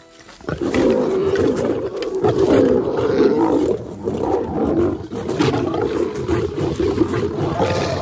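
Lions snarling at each other in a fight over a kill, the usual aggression at a carcass. It starts suddenly about half a second in and goes on without a break.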